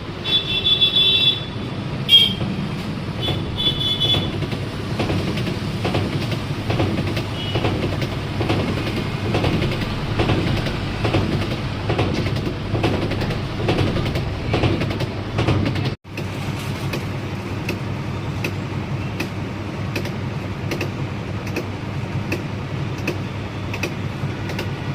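Godrej top-load washing machine running: a steady low rumble with a regular clatter about every two-thirds of a second. A few short high beeps sound in the first four seconds.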